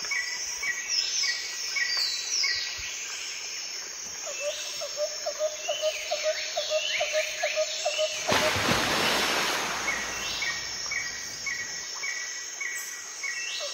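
Birds calling in quick, evenly repeated chirps and sweeping notes. A burst of rushing noise comes in about eight seconds in and lasts about two seconds.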